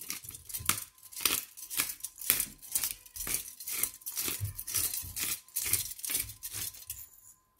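Hand-held pepper grinder being twisted, grinding black peppercorns in a quick run of gritty strokes, about three a second, stopping shortly before the end.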